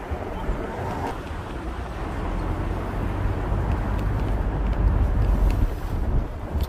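Street ambience: a steady low rumble that grows louder about five seconds in, then falls back.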